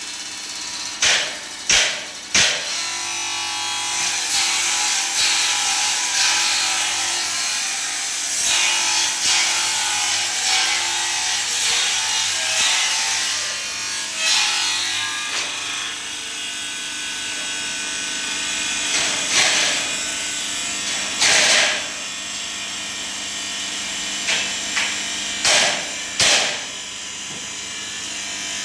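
Power grinder grinding the teeth of a granite-cutting saw blade: a steady motor hum under the grinding noise, which swells in short louder bursts now and then. There are three sharp knocks near the start.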